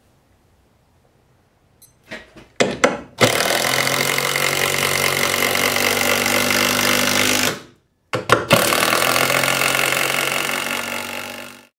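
Makita BTD142 18-volt cordless impact driver driving a hex bolt into a double 2x8 plank. A few short trigger blips about two seconds in, then a steady run of about four seconds, a brief stop, and a second run of about three seconds that winds down at the end.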